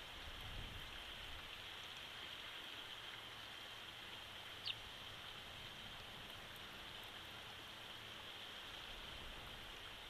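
Faint, steady outdoor hiss from the nest-cam microphone, with one short, high, falling bird chirp a little before halfway.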